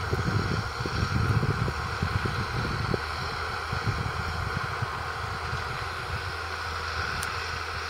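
Valtra T151's 6.6-litre six-cylinder diesel running steadily at a constant pitch. Wind buffets the microphone, gusting hardest over the first three seconds.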